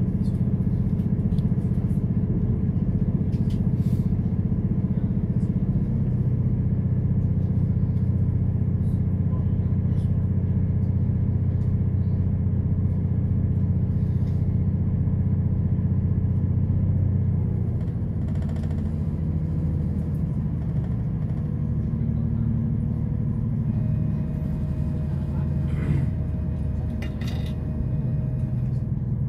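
Inside a moving diesel passenger train: the steady drone of the engine and the rumble of wheels on the rails at speed. The drone eases a little about two-thirds of the way through, and near the end a thin whine joins in with a couple of sharp clicks.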